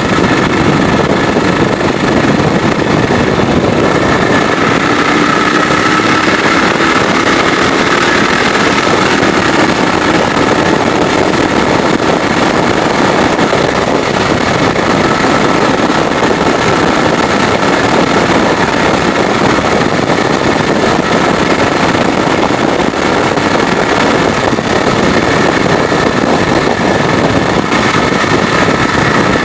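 BSA 441 single-cylinder four-stroke motorcycle engine running at road speed, heard from the handlebars with wind rushing over the microphone. The engine note rises and falls a little in the first several seconds, then holds steady.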